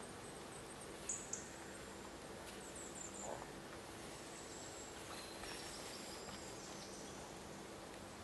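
Faint outdoor background hiss with small birds chirping high and briefly, a cluster of chirps about a second in and another near three seconds.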